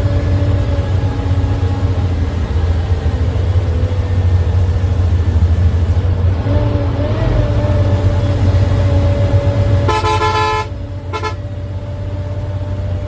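Steady low drone of a bus engine and road noise on a highway. Near the end a vehicle horn honks twice, a longer blast then a short one.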